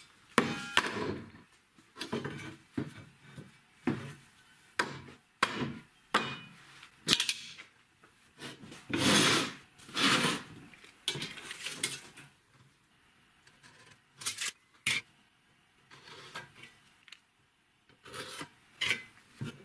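Steel rectangular profile-pipe lengths being set down and moved on a plywood workbench: a series of sharp knocks, a few with a short metallic ring. About halfway through comes longer scraping as pipe slides across the wood.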